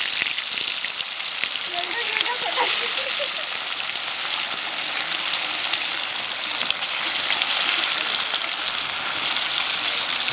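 Hilsa fish pieces frying in hot oil in an iron kadai: a steady, dense sizzle with fine crackling spatters.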